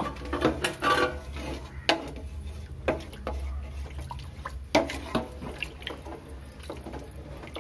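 A wooden spoon stirring a watery vegetable masala in a metal pot: liquid sloshing, with scattered knocks of the spoon against the pot over a steady low hum.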